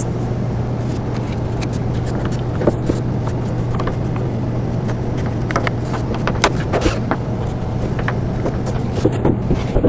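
Bolts being turned into a plastic play table with a small hand assembly tool: scattered light clicks and scrapes of metal on plastic, over a steady low hum.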